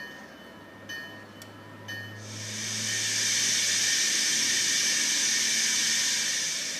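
Digital sound decoder of an HO scale model steam locomotive, standing still, playing a steam hiss that swells up about two seconds in, holds steady for about four seconds and fades at the end. Before it come a couple of faint clicks.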